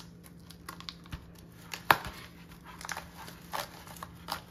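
Plastic poly bubble mailer crinkling and crackling as it is handled and opened, with scattered small clicks and one sharp snap about two seconds in.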